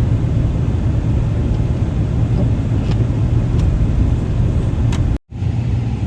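Steady low rumble of a car, with a brief dropout just after five seconds in where the recording cuts.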